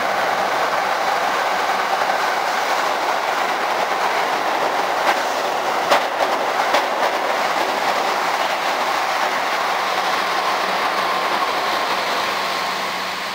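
Keihan 8000 series eight-car electric train passing through a station at speed without stopping: a loud, steady rush of wheels and running gear, with a few sharp wheel clacks in the middle. It fades near the end as the last car moves away.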